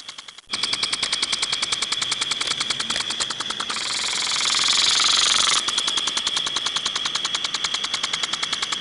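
Water spraying in rapid, even pulses, about ten a second, over a steady high hiss. From about four to five and a half seconds in, a denser rush of spray covers the pulsing.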